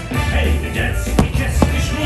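Music from the fireworks show's soundtrack, with two sharp firework bangs about half a second apart a little past the middle.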